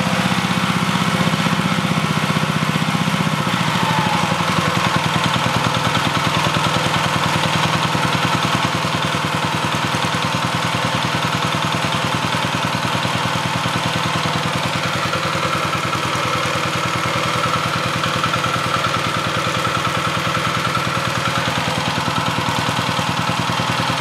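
Small stationary engine running steadily just above idle, set by a turned-up idle screw with the governor off, belt-driving an alternator; it is just ticking away. Its note shifts slightly about three seconds in.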